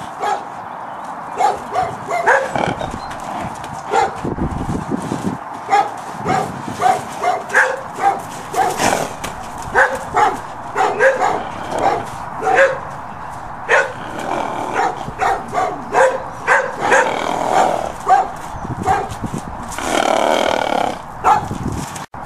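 A dog barking over and over, about two barks a second, with a longer drawn-out call about twenty seconds in.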